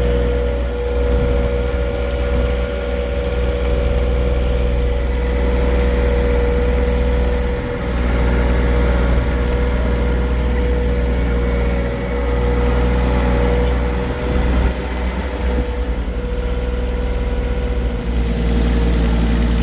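Small tractor engine running steadily, with a few brief dips in level.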